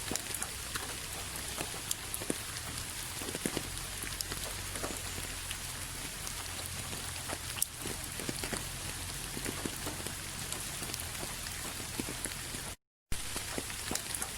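Steady rain with scattered individual drop hits. It cuts out to complete silence for a split second about 13 seconds in, then resumes.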